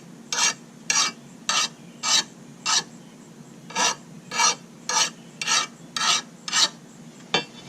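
Hand file rasping along the cutting edge of a steel lawn mower blade in short back-and-forth strokes, about two a second, with a pause of about a second midway, cleaning off the burr left by grinding.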